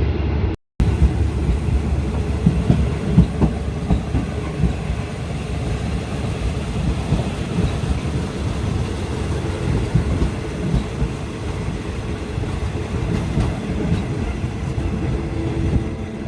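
Passenger train running along the track: a steady low rumble with irregular clatter from the wheels on the rails.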